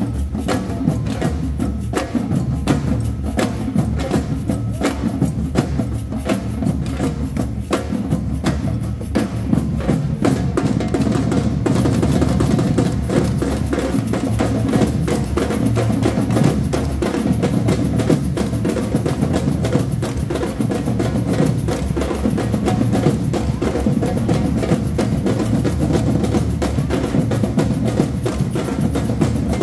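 Street drumming band playing large metal-shelled bass drums and snare drums together in a steady, fast rhythm.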